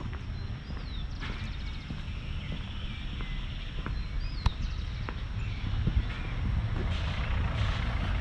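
Outdoor walking ambience: birds chirping and trilling, with scattered footsteps or taps over a low, steady rumble that swells with a hiss near the end.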